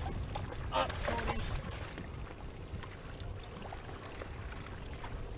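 A boat's engine running low and steady, with splashing as a hooked fish thrashes at the surface beside a landing net, loudest about a second in.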